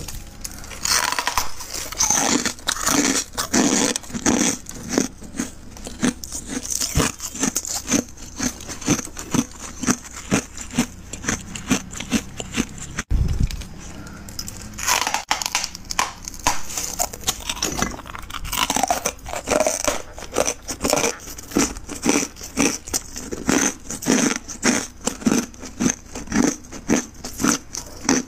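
Thick freezer frost being scraped and cut loose from the freezer wall, a run of scrapes at about two strokes a second, with a short pause and one low thump a little before the middle.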